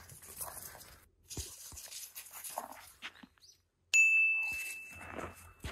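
Faint scattered small knocks and rustles, then about four seconds in a single bright, high-pitched ding that rings on, fading, for nearly two seconds before being cut off abruptly.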